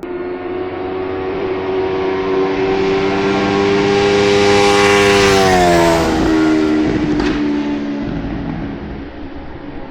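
Honda CB650R's inline-four with a Leo Vince LV One Pro exhaust passing by at a steady pace: the engine note grows louder, drops in pitch as the bike goes past about five to six seconds in, then fades away.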